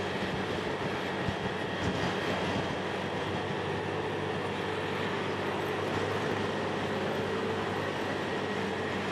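Motor scooter running at a steady cruising speed: an even engine hum with road and wind noise on the camera microphone.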